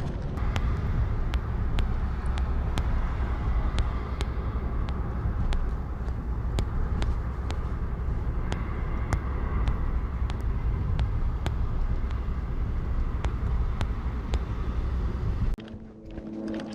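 A car driving: steady low road and engine rumble, with a regular click about twice a second over it. The rumble cuts off abruptly near the end.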